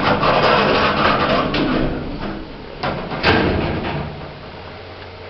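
Lift's sliding doors running shut, ending in a knock as they close about three seconds in.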